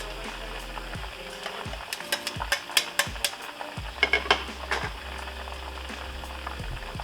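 Food sizzling in a hot pan, with a run of sharp clinks from a utensil stirring against the pan around the middle.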